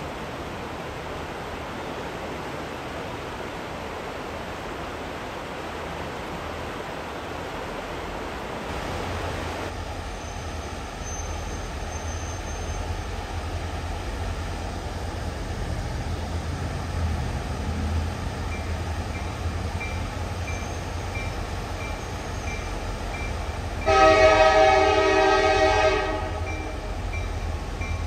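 A rushing creek and an approaching EMD SD40-2 diesel locomotive, its low engine rumble slowly growing. A grade-crossing bell starts dinging evenly about two-thirds of the way in. Near the end the locomotive sounds one loud horn blast of about two seconds, a warning for the grade crossing.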